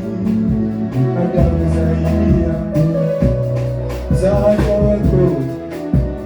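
Worship band music between sung lines: a moving bass line under held chords, with a steady drum beat.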